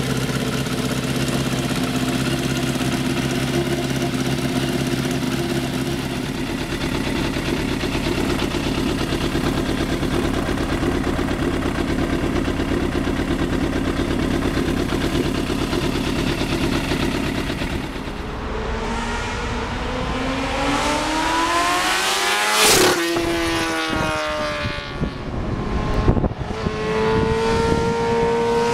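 Sport motorcycle engine running at steady revs. From about eighteen seconds in, a motorcycle passes at speed: its pitch rises as it approaches, falls sharply as it goes by, and rises again as it comes back near the end.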